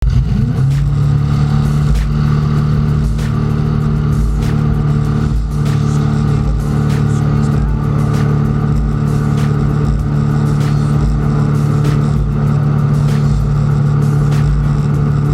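Drag boat engine revving up in the first half second, then holding a loud, steady high-rpm drone at full throttle, with irregular low buffeting underneath.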